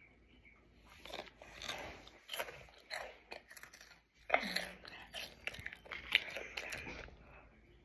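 A person chewing crunchy hot chips close to the microphone: a run of irregular crunches, loudest about four seconds in.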